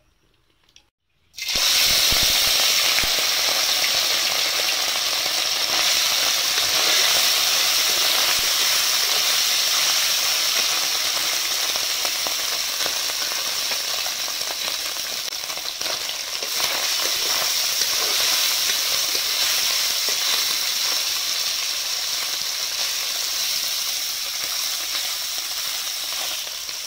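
Small whole river fish hitting hot oil in a metal karahi: a loud frying sizzle starts suddenly about a second and a half in and keeps on steadily, easing slightly near the end, with a spatula stirring the fish in the pan toward the end.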